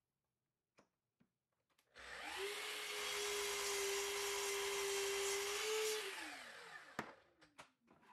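Festool sliding miter saw started about two seconds in, its blade running at a steady pitch through a walnut board, then switched off and winding down with a falling whine. A single sharp knock follows as the saw head is let back up.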